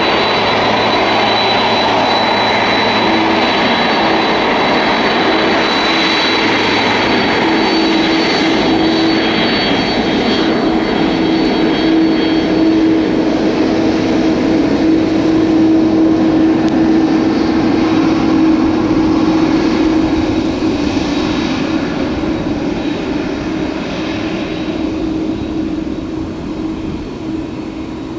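Jet engines of a departing Boeing 767-300F cargo plane, a dense steady noise with a low hum and a high whine. The noise builds to a peak a little past halfway, then fades as the aircraft moves away.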